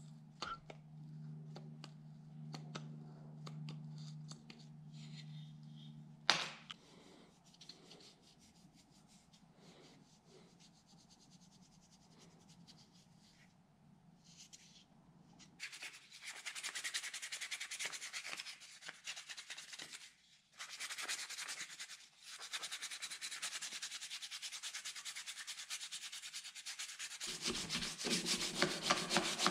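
Diagonal cutters working small nails out of a painted wooden part: faint clicks, then one sharp snap about six seconds in. From about halfway, sandpaper rubbed by hand back and forth along a painted wooden strip in steady scratchy strokes, with two brief pauses, the loudest sound.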